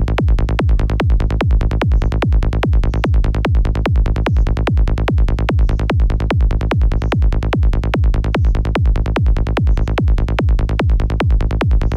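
Electronic trance-style track with a steady four-on-the-floor kick and a bassline tuned to A (55 Hz), at about two beats a second. Its low end is boosted by a low-frequency enhancer plugin, so heavily that the producer finds it too much.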